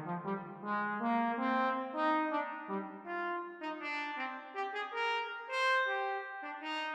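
Brass trio playing several lines at once in short notes that change every fraction of a second.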